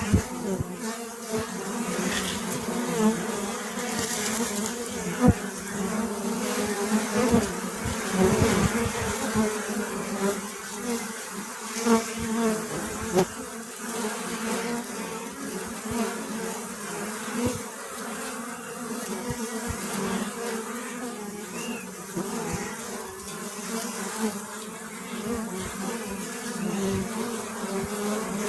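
Bees buzzing together in a continuous drone whose pitch wavers slightly, with a few short clicks scattered through it.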